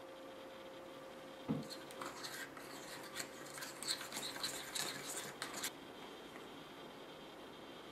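Small plastic spoon scraping and clicking against a plastic tray while stirring powdered candy mix and water into a red ketchup gel. A knock about a second and a half in starts a few seconds of quick scratchy strokes that stop near the end.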